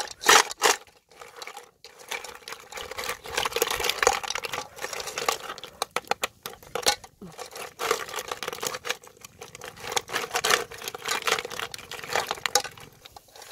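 Snail shells and okra pods being shifted by hand in a metal cooking pot: a run of clicks, clinks and rustles throughout as shells knock together and against the pot.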